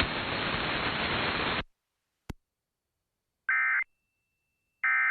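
Radio hiss after the spoken alert cuts off abruptly about a second and a half in, then a single click, then two short buzzy bursts of Emergency Alert System digital data tones about a second and a half apart: the end-of-message (EOM) SAME code bursts that close an EAS alert.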